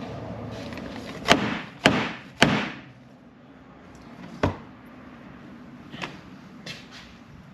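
Hammer blows on a piece of PVC pipe driving a new oil seal into a Harley-Davidson Dyna Super Glide fork tube: three sharp strikes about half a second apart, a fourth a couple of seconds later, then a few lighter taps near the end.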